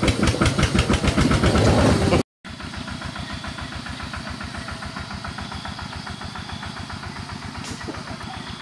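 Single-cylinder diesel engine of a Khmer two-wheel tractor running with a steady, rapid thumping. After a brief dropout to silence about two seconds in, the same even engine thumping goes on, quieter.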